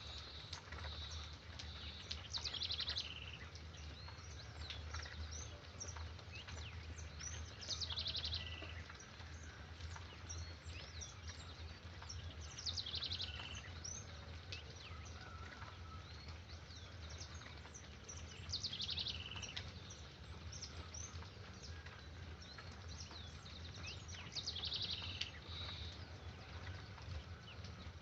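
Wild birds singing: scattered short chirps, and one bird repeating a high trilled phrase about every five to six seconds, over a steady low rumble.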